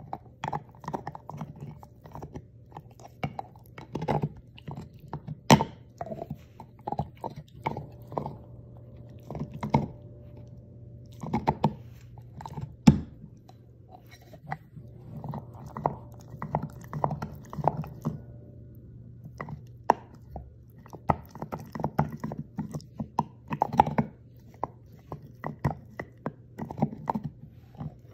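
Bluetick coonhound gnawing a hard chew held between its paws: irregular crunching and scraping of teeth on the chew, with a couple of much sharper cracks.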